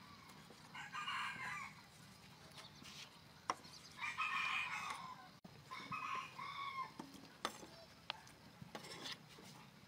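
Chickens calling in three short bouts, about one, four and six seconds in. A few sharp knocks of a knife on a wooden chopping board come in between.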